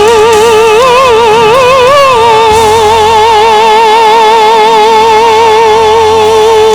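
Solo singer holding a long, high note with steady vibrato after a short ornamented run, over instrumental accompaniment: the drawn-out climax of a gospel hymn's closing line.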